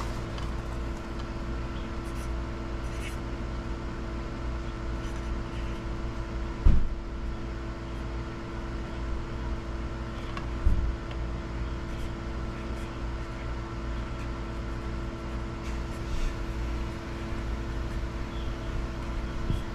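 A steady machine hum made of several held tones, broken twice by a short dull thump a few seconds apart.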